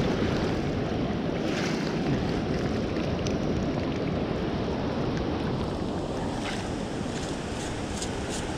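Surf washing around in shallow water, a steady rushing noise with wind on the microphone, and a few faint clicks through it.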